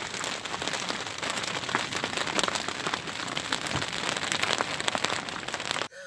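A steady hiss full of small crackles and splashes, from choppy water and wind around the deck of a sailing yacht.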